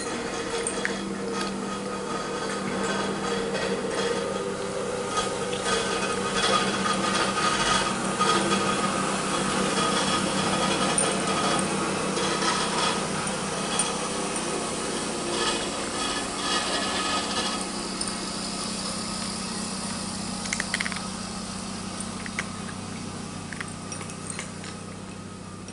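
A calico cat eating from a ceramic bowl: a continuous run of small crunching, scraping clicks as it chews, over a steady low hum.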